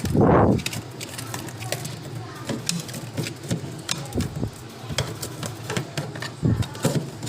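Refrigerator parts being taken apart by hand: a dull knock at the start, then irregular clicks and taps of plastic and metal parts, with two more knocks near the end.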